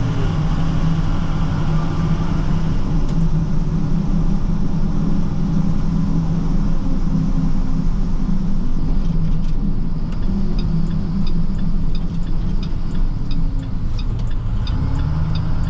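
Chevrolet Silverado 6500 plow truck driving, heard from inside the cab: a steady engine and road drone that dips and comes back up a little past halfway. From about the middle on, a light ticking repeats steadily, two to three times a second.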